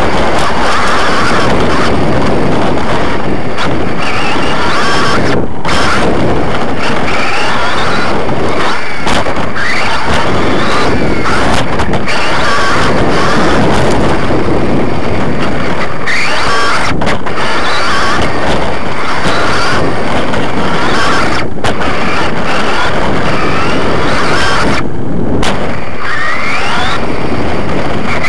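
Onboard sound of a Losi XXX-CR 2WD electric RC buggy racing over a dirt track: constant rattle and tyre-on-dirt noise, with the whine of its Fantom Ion 17.5 brushless motor rising several times as it accelerates.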